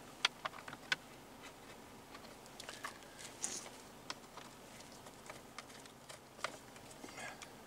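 Faint, scattered light clicks and taps of small plastic parts and screws being handled at a car's steering column.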